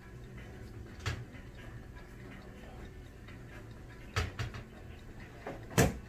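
A few separate light knocks and clicks of small objects being handled and set down on a hard surface, the loudest near the end, over a faint steady hum.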